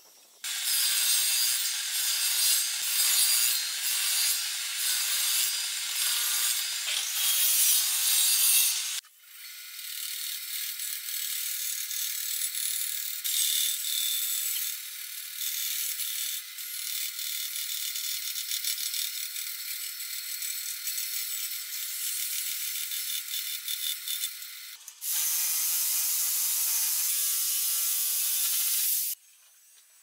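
Table saw blade cutting through a wooden board for about nine seconds, then a benchtop band saw cutting a block of wood strips, a steadier and quieter sound. Near the end another machine runs loudly for about four seconds and then stops.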